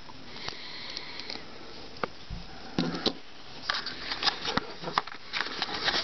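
Small plastic clicks and handling noise from a TSA combination padlock as its number wheels are thumbed round, with scattered sharp clicks and a few short rustling bursts.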